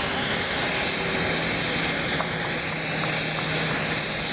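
Airbus A319-100 airliner's jet engines running as it taxis at low power: a steady rushing noise with a high whine held over it.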